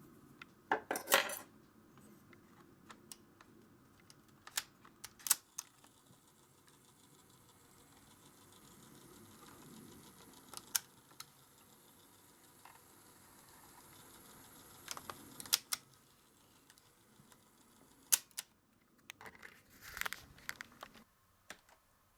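Scattered clicks and short clatters of small hard objects being handled and set down, with several sharp knocks spread through.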